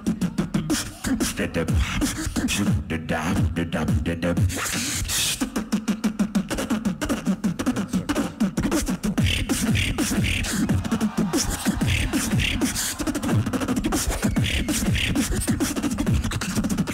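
Beatboxer performing a battle round into a microphone: a fast, dense rhythm of vocal kick drums, snares and clicks over deep bass notes that slide down in pitch.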